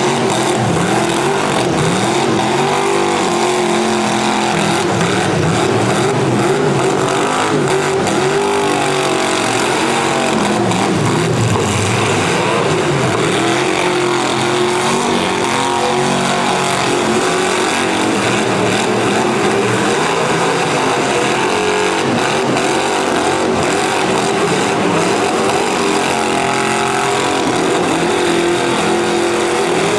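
Several demolition derby cars' V8 engines running and revving at once, their pitches rising and falling over one another.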